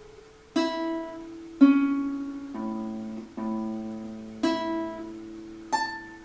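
Nylon-string classical guitar played fingerstyle: six slow plucked notes and chords, each left to ring and fade, the last one about six seconds in dying away.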